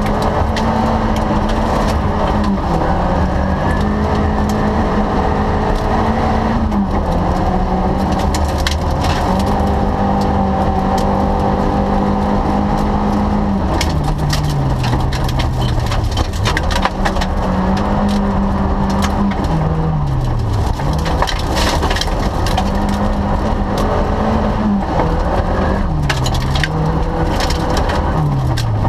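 Rally car engine heard from inside the cabin, running hard under load. Its note falls and climbs again several times as the driver lifts and reaccelerates. Gravel crunches and stones clatter against the car's underside throughout.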